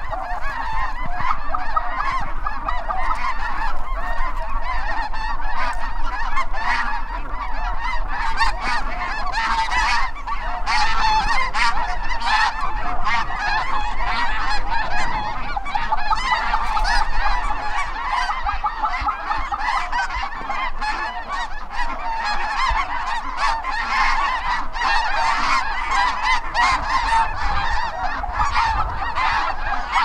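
A large flock of snow geese calling overhead: a dense, continuous chorus of overlapping honks.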